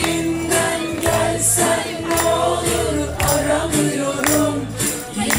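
Upbeat dance music with singing over a steady beat with jingling percussion.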